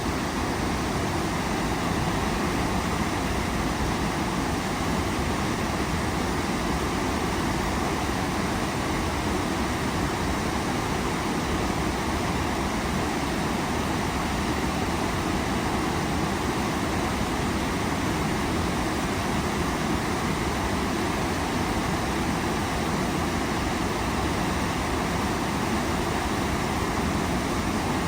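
Waterfall rushing: a steady, unchanging noise of falling water.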